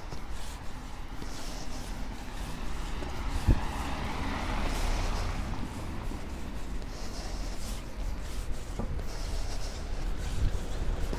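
Residential street traffic: a vehicle swishes past about four to six seconds in over a steady low rumble, and a louder vehicle approaches near the end. A sharp knock about three and a half seconds in, with a fainter one near the end.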